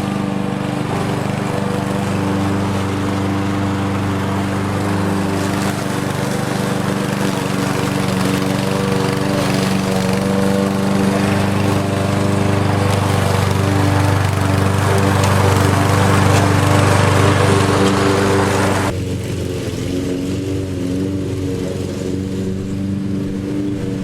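Lawn mower engine running steadily, growing a little louder midway. About 19 seconds in, the sound abruptly turns duller and quieter.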